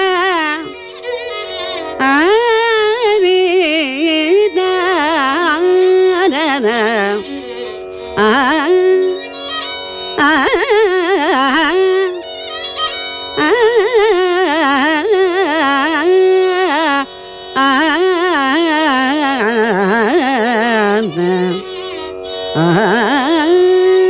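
Carnatic classical singing in raga Bilahari by a woman, with violin following her phrases over a steady drone. The melody slides and oscillates through gamakas in phrases a few seconds long, with brief dips between them.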